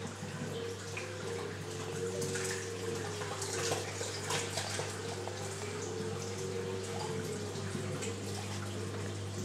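Water circulating in a reef aquarium, trickling and splashing steadily with a few louder splashes, over a steady low hum.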